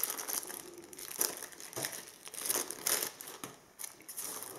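Thin clear plastic bag crinkling in the hands, a run of irregular crackles that thin out near the end.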